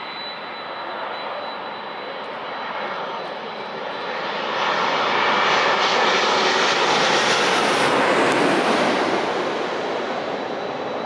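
Jet airliner on its landing approach passing low overhead: the engine noise swells from about four seconds in, peaks with a sharp hiss, then fades away as it goes past.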